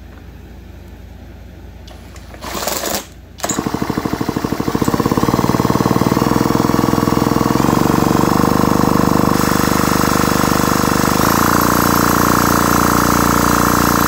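Massey Ferguson 190A engine being spun over steadily with its spark plug out and grounded on the cylinder for a spark test. A fast pulsing starts about three and a half seconds in and settles into a steady mechanical whir that changes pitch a few times.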